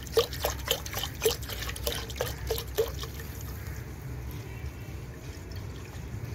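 Milk poured in a stream into a pan already holding milk, splashing in a quick pulsing series of about three a second for the first three seconds, then settling into a smoother, quieter steady pour.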